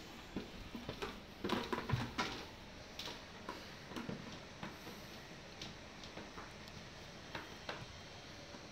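Upturned plastic tub knocking and scraping on a tile floor as a puppy pushes it along with its head inside, in irregular light clicks and knocks. A burst of louder knocks comes about one and a half to two seconds in, then sparser taps.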